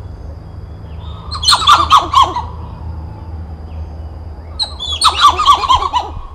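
Titi monkey (Callicebus) calling: two bursts of rapid, repeated short sweeping notes, the first about a second in and the second near the end, each lasting about a second.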